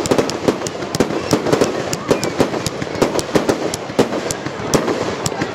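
Aerial fireworks going off in quick succession: an irregular run of sharp pops and bangs, several a second.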